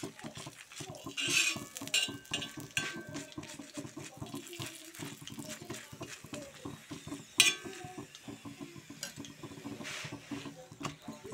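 Clinks and scrapes of a roti being handled and turned on a black iron griddle (tawa), with a sharp clank about seven seconds in.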